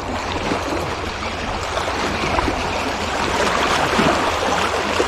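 Shallow water lapping and splashing against shoreline rocks, a steady rush that swells slightly over the last seconds.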